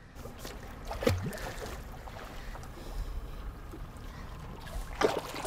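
Water splashing and sloshing against a boat's hull as a hooked fish thrashes at the surface beside it, with wind on the microphone. A sharp thump stands out about five seconds in.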